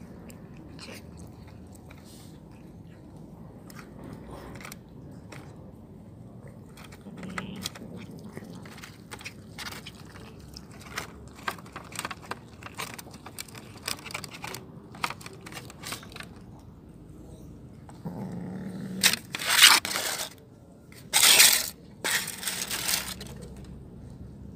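Cats chewing and crunching chicken pieces, with many quick wet clicks of eating and the crinkle of aluminium foil trays. A few loud crinkling rustles of the foil trays come near the end.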